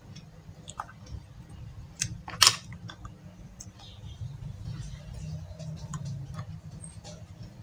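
Scattered small clicks and taps of makeup items being handled, such as a plastic compact case, with one sharp, louder click about two and a half seconds in, over a steady low hum.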